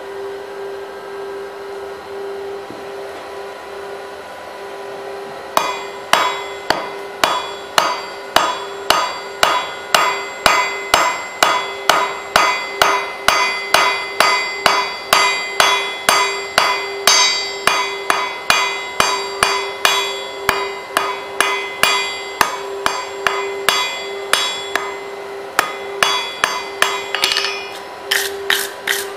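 Hand hammer striking a hot bar on an anvil, ringing blows about two a second as the end is drawn out into a taper; the hammering begins about five seconds in and pauses briefly near the end before quicker blows. A steady hum runs underneath.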